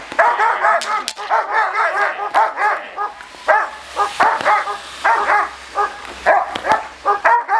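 German Shepherd dog barking rapidly and repeatedly, several barks a second, the excited barking of a dog lunging on its line at a protection-training decoy with a bite pillow.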